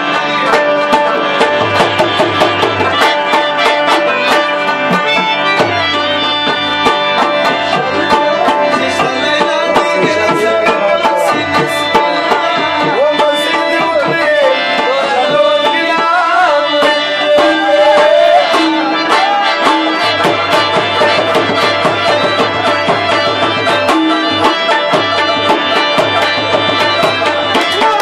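Pashto folk instrumental: a rabab plucking a quick melody over a tabla beat, with no singing.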